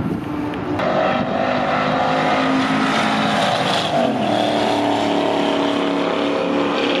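First-generation Chevrolet Camaro race car's engine running at speed on a track. It gets suddenly louder about a second in, and its pitch drops about four seconds in.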